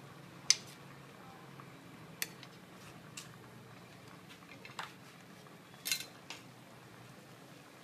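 Scattered sharp clinks of a stainless steel plate and a metal spoon being handled during food preparation, about six in all, the loudest about half a second in and a quick double clink near the end. A faint steady low hum runs underneath.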